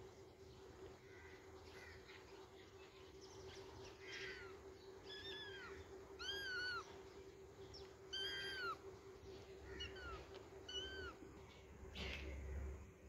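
Tabby kitten meowing about six times, each meow short and rising then falling in pitch, starting a few seconds in.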